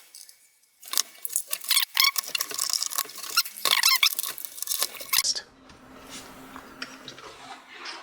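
Rapid clicking and clattering of small hard laptop parts being handled, for about four seconds. A quieter steady hum follows from about five seconds in.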